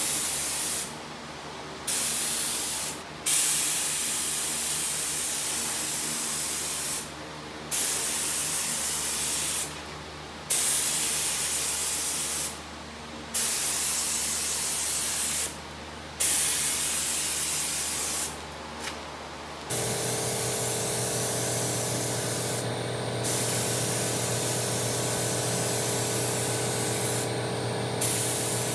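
Compressed-air paint spray gun hissing as gloss black single-stage paint is sprayed, in passes of a few seconds each with short stops as the trigger is released. About two-thirds of the way through, a steady low hum joins in and the spraying becomes nearly continuous.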